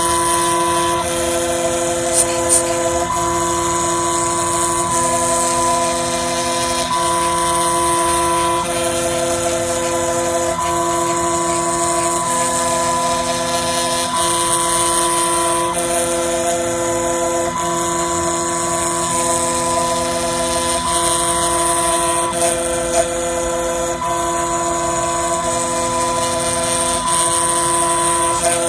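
Small CNC milling machine running a cutting pass across a phone IC. Its stepper motors whine in steady tones that switch pitch every second or two as the cutter sweeps back and forth, over the constant hiss of the spindle and cutter.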